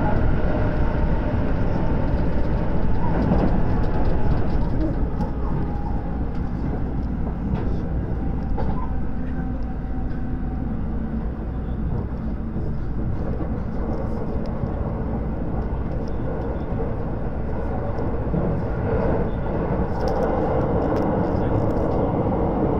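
Running noise inside a JR 683 series limited-express motor car at speed: a steady rumble of wheels on rails and the car's traction equipment, with faint held tones above the rumble.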